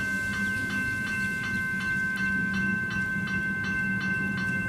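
Level crossing warning bells (General Signals electronic bells) ringing rapidly, about three dings a second over a steady high ringing tone, while the McKenzie & Holland gate mechanisms lower the boom gates with a low hum underneath.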